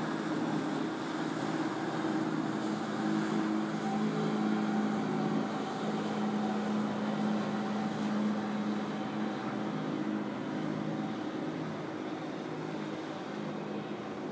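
Steady low mechanical hum of a large ship's machinery, heard from aboard, over a steady rushing noise; it eases slightly in the last few seconds.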